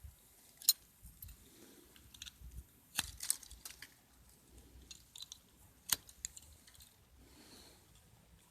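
My Garden Crazy 20 cm ratchet pruner being handled and worked, giving a few sharp clicks and snaps with quieter rustling and small clicks between. The loudest snaps come about a second in, twice around three seconds, and once near six seconds.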